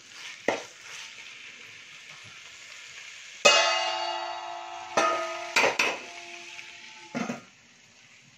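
Onions and tomato sizzling softly in a stainless-steel pan, then a sharp metal clang sets the steel ringing for a few seconds, with a few more clinks. Near the end a clank as the steel lid goes on, and the sizzle falls to a faint hiss.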